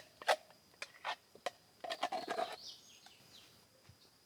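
A few short knocks and a scrape of a utensil against a pot or bowl as cake batter is poured into a hot oiled pot. Faint bird chirps come near the middle.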